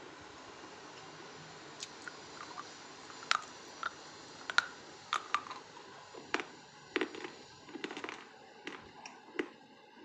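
Crunchy food being bitten and chewed close to the microphone: irregular sharp crunches that start about two seconds in and come more thickly in the second half.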